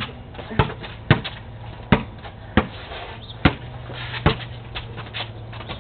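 A basketball being dribbled on concrete: about six sharp bounces, unevenly spaced, a little under one a second.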